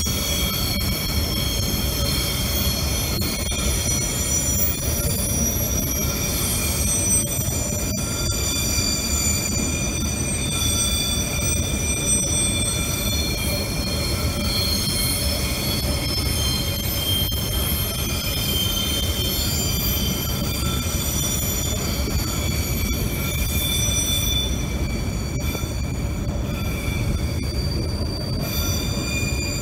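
Freight train of hopper wagons rolling past, a steady rumble of wheels on rail with several high, steady squealing tones from the wheels.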